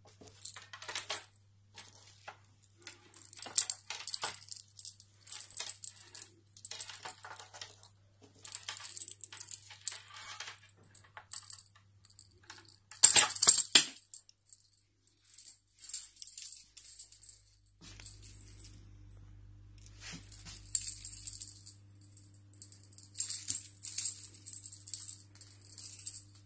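Small jingle bell on a cat feather teaser wand tinkling in irregular bursts as the toy is shaken and waved, loudest about thirteen seconds in.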